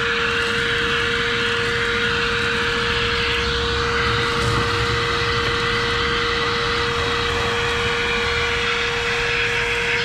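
Household vacuum cleaner running steadily with a constant motor whine, sucking debris out of a car engine's open intake ports after the intake manifold has been removed.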